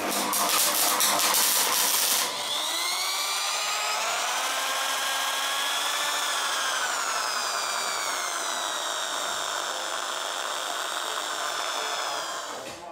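Electric drill with a mixing rod stirring paint in a can; its motor whine rises and falls slowly in pitch as its speed changes. It opens with about two seconds of loud crackling from welding.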